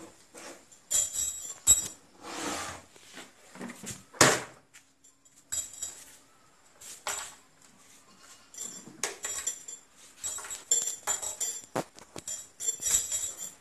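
A small metal-framed whiteboard clattering and clinking on a concrete floor as a toddler handles it, with short metallic rattles throughout and a loud knock about four seconds in.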